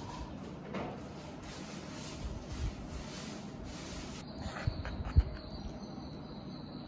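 Metal spatula spreading soft cream cheese across a metal baking pan: soft scraping and rubbing, with a few dull knocks, the loudest about five seconds in.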